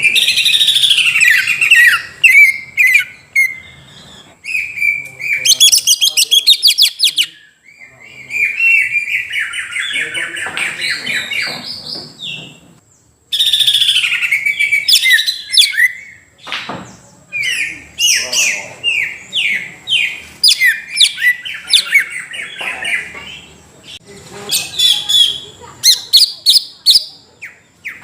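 Cucak ijo (green leafbird) singing loudly: a rapid, varied chattering song of quick chips, slurred whistles and trills in runs, with a brief pause about halfway through.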